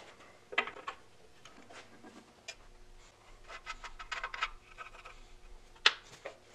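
Hands handling small metal engine parts while fitting a wire to a terminal on the engine's side plate: light scraping and ticking, busiest in the middle, with one sharp click about six seconds in.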